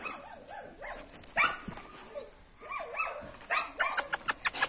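Dog barking, a few short barks, followed near the end by a quick run of sharp clicks.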